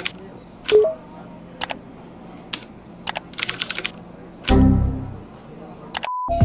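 Computer keyboard typing: quick clusters of key clicks. About four and a half seconds in comes a louder low thud lasting about half a second, and near the end a short, steady high beep sounds, an error beep.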